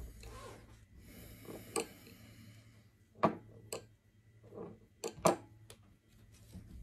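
Handling noise as fluorocarbon fishing line is wrapped around a gloved hand for a pull test. A soft rushing noise comes first, then several sharp clicks and taps, the loudest a little after three seconds and again around five seconds.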